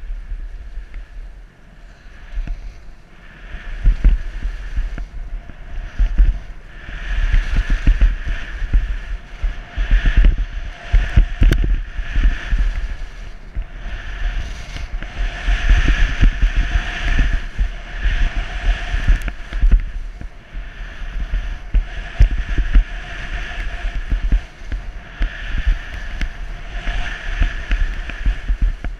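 Skis hissing and scraping across chopped snow through a run of turns, the hiss swelling with each turn, over a low wind rumble on the microphone.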